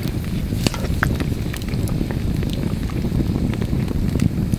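Wood campfire burning: a steady low rumble with scattered sharp crackles and pops from the burning logs.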